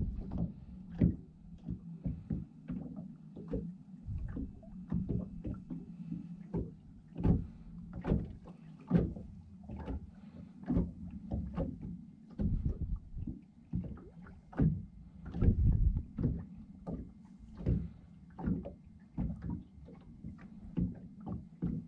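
Small waves slapping against a NauticStar fiberglass boat hull in quick, irregular knocks of uneven strength, over a steady low hum.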